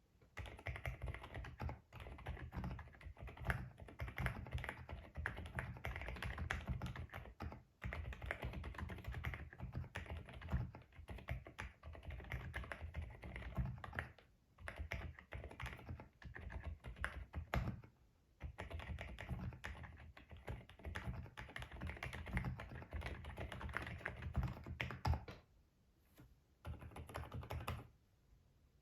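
Typing on an Epomaker Shadow-S mechanical keyboard with Sea Salt Silent switches: rapid, muted key presses in long runs, broken by a few short pauses.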